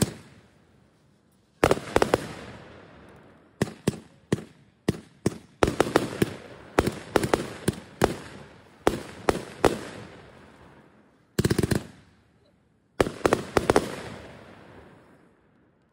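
Multi-shot aerial firework cake firing. Shells launch and burst overhead with sharp bangs, some spaced out and others in quick rapid volleys, separated by short quiet gaps.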